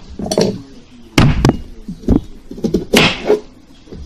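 A handful of separate knocks and thunks, the loudest about a second in, as the cut-off pumpkin lid is handled and set against the pumpkin and table.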